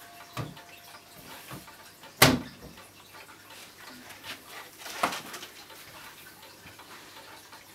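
Glass hood door of a wooden grandfather clock being shut and latched: a few sharp knocks and clicks, the loudest about two seconds in and another about five seconds in. The last chime note dies away in the first two seconds.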